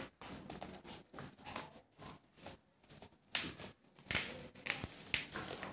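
Packaging being handled and opened by hand, with a small cardboard box among it: irregular rustling, scraping and short tearing noises. A few sharper clicks and scrapes come about three and four seconds in.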